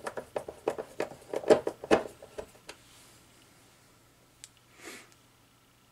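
Quick run of small clicks and knocks as screws and plastic parts are handled and fitted by hand on the underside of a Bissell PowerGlide Pet upright vacuum. The clicks are loudest about one and a half to two seconds in and stop about three seconds in.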